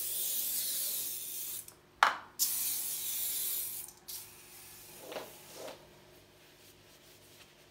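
A hissing spray in long bursts: two loud hisses of under two seconds each, split by a sharp click about two seconds in, then a fainter hiss with two soft knocks that dies away about six seconds in.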